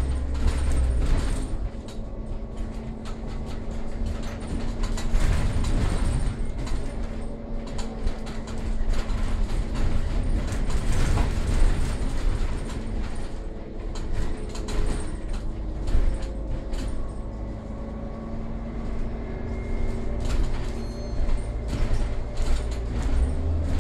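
Cabin of a moving Irisbus Citelis CNG city bus: its natural-gas engine running with low road rumble, and scattered rattles and clicks. A steady hum sits over the rumble through the first half.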